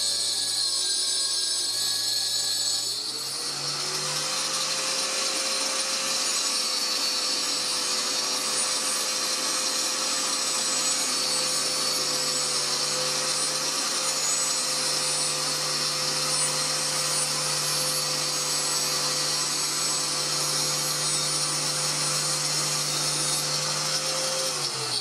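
A router on a lathe's copying carriage mills a turning wooden blank into a cylinder. About three seconds in it spins up with a rising whine, then runs at a steady high pitch with a hissing cutting sound. At the very end it spins down with a falling whine.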